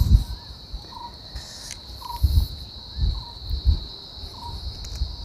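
Steady high-pitched drone of insects, with a bird's short call repeated roughly once a second and a few low, muffled thumps.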